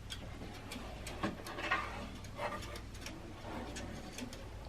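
Pet bird giving several short, soft calls in a row.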